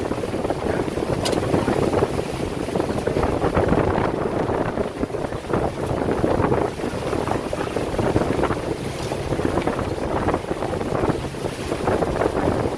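Boat motor running steadily while the boat is under way, with wind buffeting the microphone.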